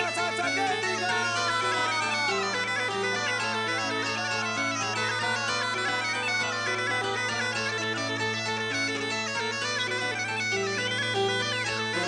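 Background music: a bagpipe tune, its melody stepping from note to note over a steady low drone.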